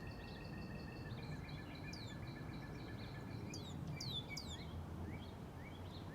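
Northern cardinal singing: a quick series of sharp downslurred whistled notes about two to four seconds in, then fainter short notes, over a steady high trill and a low background rumble.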